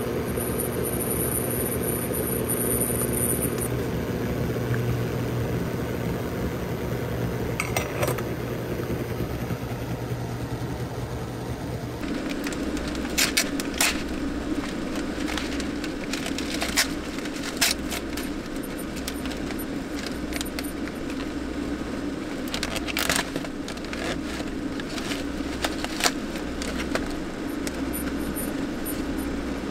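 Steady car hum, its tone changing about twelve seconds in to a lower hum that throbs about once a second, with scattered light clicks and jingles like keys or small objects being handled over the last half.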